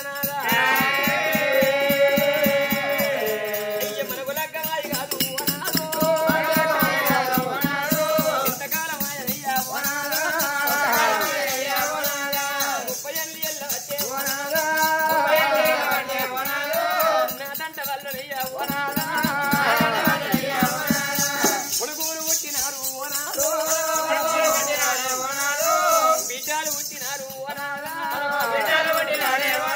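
Telugu Oggu Katha folk storytelling sung by a performer, a melodic vocal line carried throughout, with steady jingling bells and a drum beating the rhythm.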